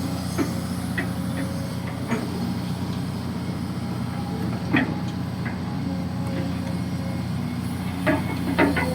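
Kobelco SK200-6 Super hydraulic excavator's diesel engine running steadily while it digs, with a few sharp knocks and clanks, the loudest about halfway through and two close together near the end.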